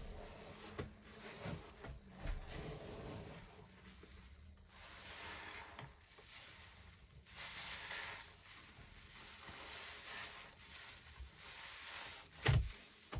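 Wet sponges heavy with thick soapy foam being squeezed and wrung by hand, squelching and hissing as the suds are pressed out, with one sharp thud near the end.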